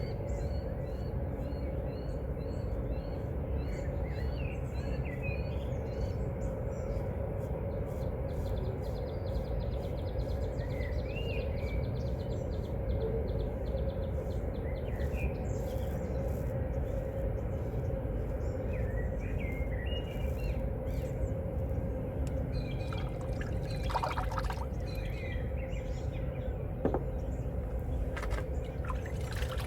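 Dawn bird song: one bird repeats a short high chirp about twice a second for the first several seconds while other birds call here and there. Under it runs a steady low background rumble.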